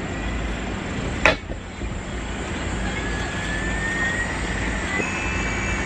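Electric gyro flywheel in the rear wheel of a BSD Racing 404T 1/4-scale RC dirt bike spinning up after power-on: a steady whir with a whine that rises in pitch, and a sharp click about a second in.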